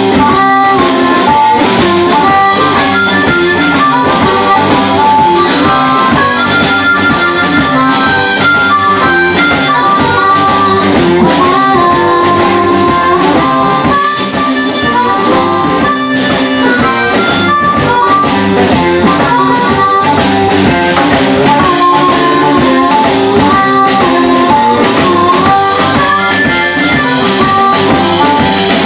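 Live electric blues band: amplified harmonica played through a hand-held microphone, with long held and bending notes, over electric guitar, bass guitar and a drum kit.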